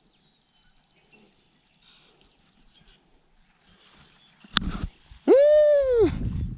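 A goose gives one loud, drawn-out honk that rises and then falls in pitch, shortly after a sharp click. Faint bird chirps come before it, and rough handling or walking noise follows.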